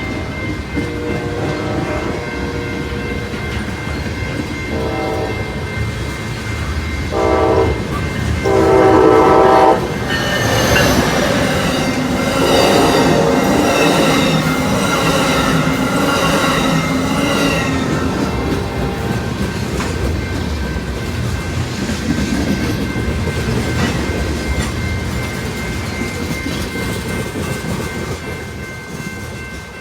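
Locomotive air horn sounding a series of blasts that grow louder, the loudest and longest about eight to ten seconds in, with more horn sounding over the next several seconds as the train passes. The rumble and clickety-clack of the train's wheels on the rails follow and slowly fade.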